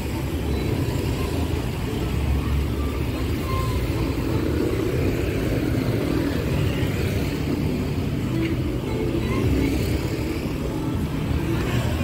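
Steady road traffic noise: vehicle engines running continuously in the street.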